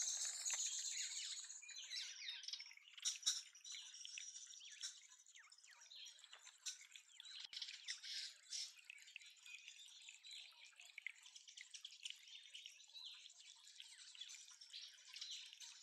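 Water dripping and trickling from a small spout into a feeder's water dish, with scattered short bird chirps over it.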